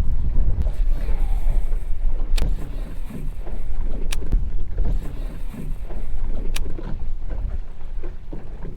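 Wind buffeting the microphone in a steady low rumble that gusts, with a few sharp clicks spaced a couple of seconds apart.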